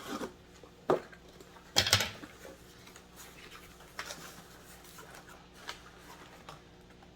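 A shipping box being opened and its contents handled: scattered knocks and clicks, with the loudest cluster and some rustling of packaging about two seconds in.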